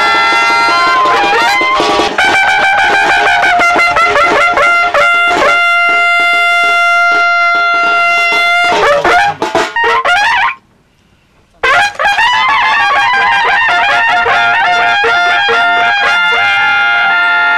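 Instrumental music led by a trumpet-like brass melody, with long held notes and quick runs; it drops out for about a second a little past the middle.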